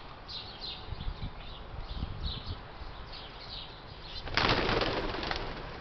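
Small birds chirping in short repeated notes, then about four seconds in a loud flurry of pigeon wings flapping for about a second.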